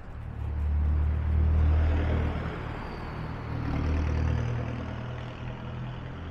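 Road traffic: motor vehicles driving past with a low engine hum, which swells twice as they go by.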